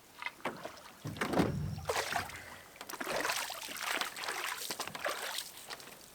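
Canoe being handled on the water: a heavy hollow knock about a second in, followed by a few seconds of swishing and sloshing.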